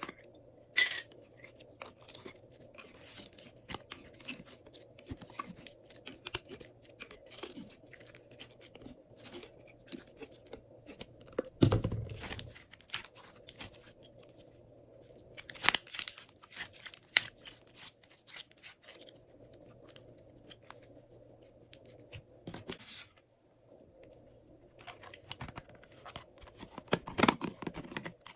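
Glossy slime being kneaded and stretched by hand, giving irregular sticky clicks, crackles and pops, with louder clusters of crackling several times.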